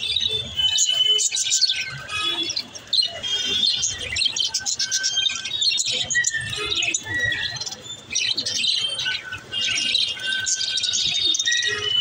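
A flock of budgerigars chattering in an aviary: constant quick chirps and warbles, with short whistled notes mixed in.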